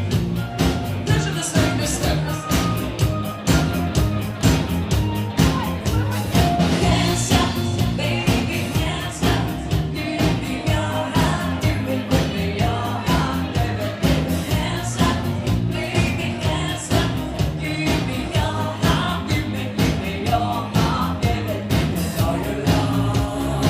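A band playing a song, with a singing voice over a steady beat.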